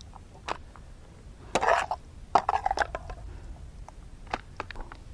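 Metal spatula scraping and knocking against a metal cooking pan as cooked noodles are dished out onto plastic plates: a few short scrapes and clinks with pauses between them.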